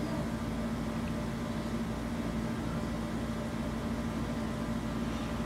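Steady low hum with an even hiss of room background noise, unchanging throughout, with no distinct handling sounds.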